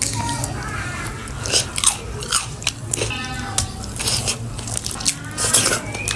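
Close-up crunchy bites and chewing of Richeese Factory food: a string of irregular crisp crunches.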